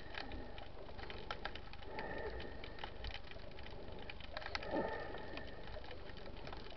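Underwater sound picked up by a submerged camera: a steady crackle of sharp clicks, typical of snapping shrimp, with a soft whooshing swell about every two and a half seconds.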